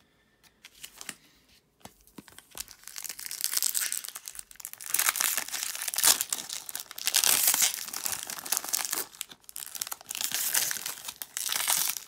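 Foil trading-card pack crinkling and tearing as hands rip the wrapper open and pull it apart. After a couple of nearly quiet seconds with a few faint clicks, the crinkling starts and comes and goes loudly.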